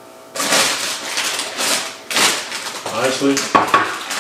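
Plastic Doritos chip bag crinkling and rustling as it is picked up and handled, starting about a third of a second in. A short voice sound comes about three seconds in.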